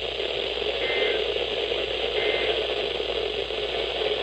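Radio receiver static: a steady hiss, with two faint short high beeps about a second apart.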